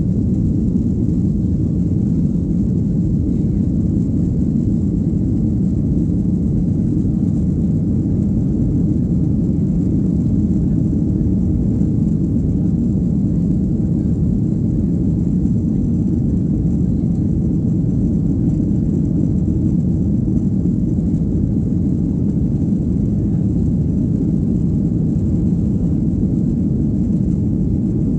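Steady engine and airflow noise inside the cabin of a Ryanair Boeing 737-800 during its takeoff climb: a deep, even rumble that holds the same level throughout.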